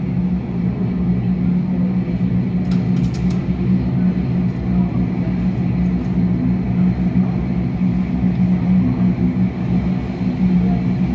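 Steady loud drone of aircraft and ground machinery on an airport ramp, with a constant low hum. A few light clicks come about three seconds in.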